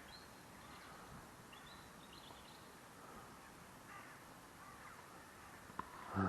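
Faint birds calling and chirping over a quiet outdoor background, with a short louder sound just before the end.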